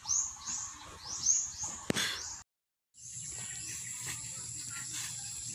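A bird chirping over and over, quick high falling chirps about three a second; after a brief dead gap the sound switches to a steady, high-pitched insect drone.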